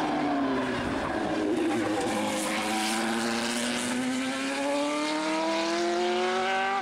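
Single-seater racing car's engine passing close by at full throttle, its pitch dipping over the first couple of seconds and then climbing steadily as the car accelerates away.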